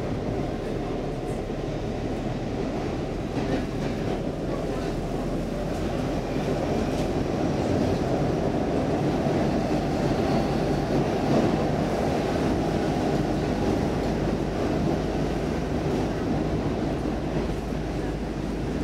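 Inside a Stockholm Metro C14 car in motion: a steady rumble of wheels and running gear. It grows louder over the first several seconds as the train pulls away from the platform into the tunnel.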